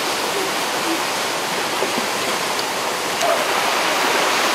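Steady rushing of running water, as from a forest stream or small waterfall, an even hiss that stays level throughout.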